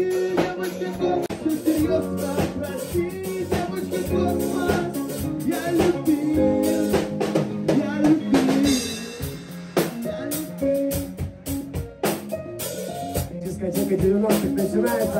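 A band playing live in a rehearsal room: a drum kit keeps a beat with kick and snare hits under sustained electric guitar and bass notes.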